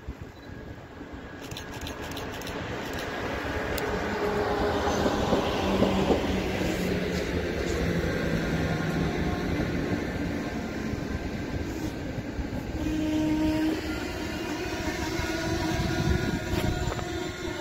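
EP09 electric locomotive hauling a passenger train of intercity coaches into the station, with rolling wheels on the rails. The noise grows over the first few seconds as the train comes in, then stays steady as the coaches pass, with a few held tones in the second half.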